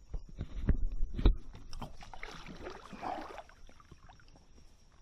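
Knocks on an inflatable paddle board with gear aboard: two heavy thumps about a second in, then lighter knocks that fade away.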